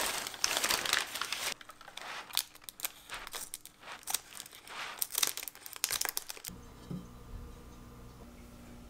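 Brown kraft paper and a clear plastic sleeve crinkling and rustling as they are handled and pulled open, dense at first and then in short bursts of rustles. About six and a half seconds in it stops suddenly, leaving a low steady hum with a few soft knocks.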